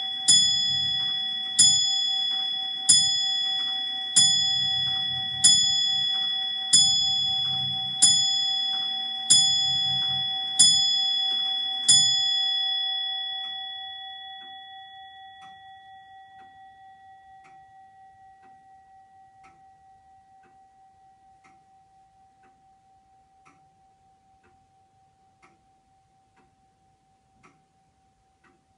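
Robert & Peter Higgs longcase clock of about 1770 striking on a single bell: ten even strokes a little over a second apart, typical of the hour strike. After the last stroke the bell hums away over several seconds, leaving the movement ticking about once a second.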